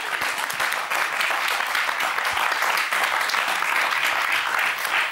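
Studio audience applauding, a steady dense clapping that runs right through.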